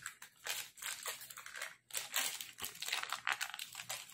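Foil wrapper of a cream cheese block crinkling and crumpling as it is handled and peeled back, in irregular rustles with a brief pause partway through.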